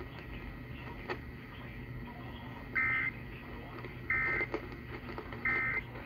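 Emergency Alert System end-of-message data bursts played through a clock radio's speaker: three short, shrill warbling bursts of data tones, about a second apart, marking the end of the severe thunderstorm warning broadcast, over a steady low hum of the AM reception.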